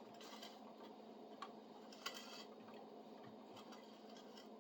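Faint, scattered ticks and creaks of a hand-turned auger drill bit boring through a spruce board, over near silence.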